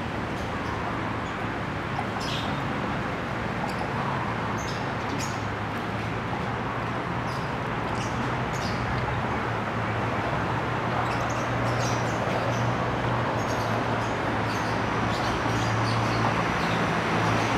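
Steady canal-side city background: a low hum of distant traffic and engines that grows slightly louder toward the end, with short high bird chirps scattered throughout.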